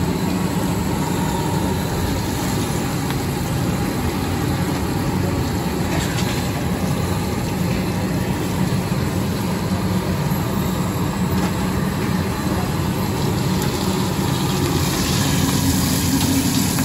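A steady low rumble throughout. Near the end, oil on a flat iron tawa starts to sizzle as a spatula is worked through it.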